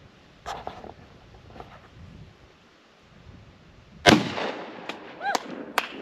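A single pump-action shotgun shot about four seconds in, sharp and loud, with a long echoing tail. A few sharp clicks follow it.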